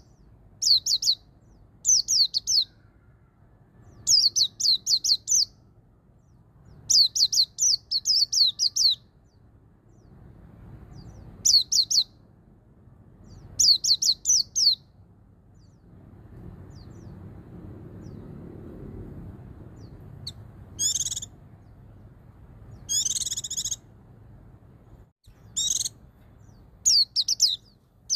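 White-eye (pleci) singing its 'ngalas' song: short phrases of quick, high, descending notes, two to about five in a row, repeated every second or two. Around two-thirds through come a couple of buzzier, trilled calls, and there is a faint low rumble in the background near the middle.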